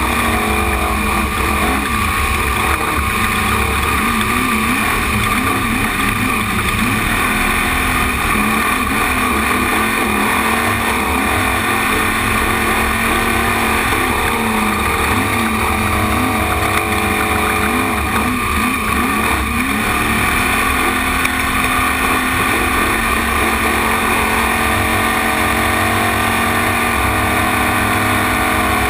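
Trophy truck engine at race speed, heard from on board, revving up and down continuously.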